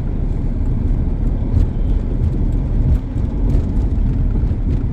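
Campervan on the move: a steady low rumble of engine and road noise.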